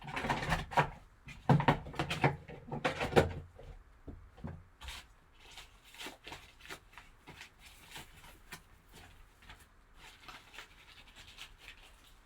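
Crinkling and rustling of a foil packaging bag being handled and opened to get the baseball out. A dense run of crackles comes first, then scattered quieter clicks.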